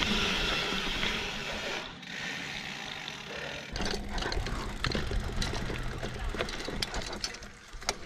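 Mountain bike rolling along a dirt trail: tyre noise with frequent clicks and rattles from the bike over bumps, and a low wind rumble on the handlebar-mounted microphone. It goes quieter for a stretch about two seconds in.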